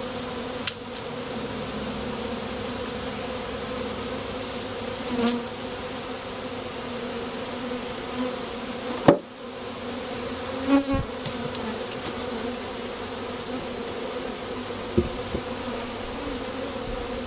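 A mass of honeybees from a freshly shaken package buzzing steadily around an open hive. A sharp knock about nine seconds in, with a few lighter knocks later.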